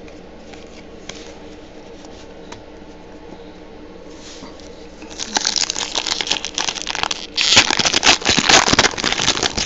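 Foil trading-card pack wrapper being torn open and crinkled by hand: a loud, dense crackling that starts about five seconds in, after a few seconds of faint card handling.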